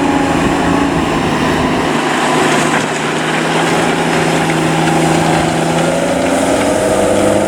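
Cummins diesel engine of a JCB Fastrac 7270 tractor running steadily under load while pulling a six-furrow plough through the soil, its pitch rising a little near the end.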